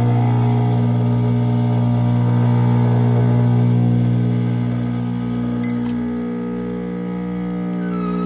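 Rancilio Silvia espresso machine's vibratory pump humming steadily just after the brew switch is turned on, building pressure through the puck until espresso starts to drip into the cup near the end. A faint click from a timer button about six seconds in.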